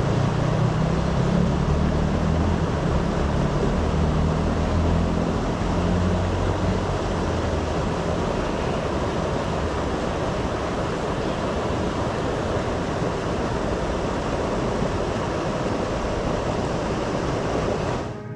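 Steady rushing of a flowing river along the bank, with a low rumble over it that fades out about seven seconds in.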